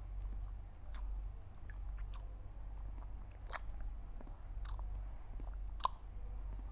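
A person lapping water from a bowl with the tip of the tongue, the way a dog or cat drinks: scattered soft wet clicks and slurps at irregular intervals, over a low steady hum.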